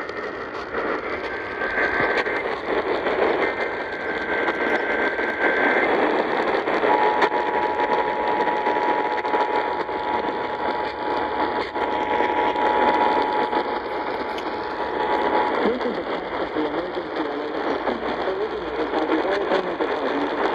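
Weak, hissy off-air radio reception carrying an Emergency Alert System alert. First come short data bursts of the SAME header. Then, starting about seven seconds in, the steady two-tone attention signal sounds for about eight seconds, all under heavy static.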